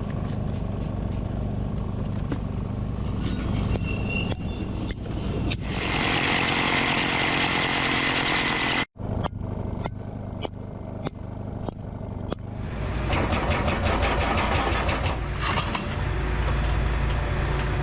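Excavator's diesel engine running steadily while its hydraulic hammer breaks rock, hitting in rapid repeated strokes that come thickest in the last few seconds. The sound drops out abruptly about halfway through.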